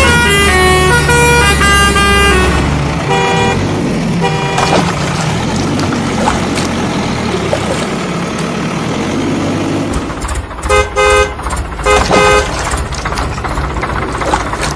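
A short tune plays for the first couple of seconds. Then come two short vehicle-horn honks, a stretch of rumbling engine noise, and a quick series of horn toots about ten seconds in.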